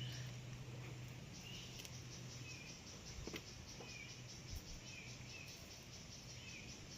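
Insects chirping in a steady, evenly pulsing high trill, with short falling chirps about once a second, over a faint low hum.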